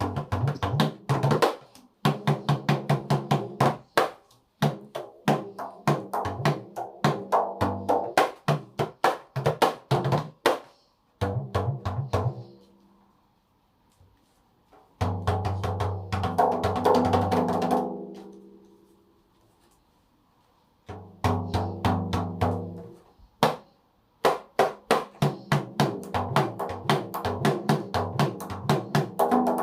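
Dikir barat rebana frame drums with pauh-wood shells, struck by hand in fast rhythmic patterns. Each stroke has a deep pitched ring. The playing stops briefly a few times, and once, about halfway through, the low tone rings on and dies away over a few seconds.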